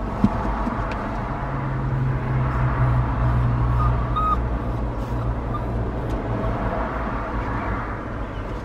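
Car engine idling steadily, a low even hum heard from inside the cabin. A brief faint high squeak sounds about four seconds in.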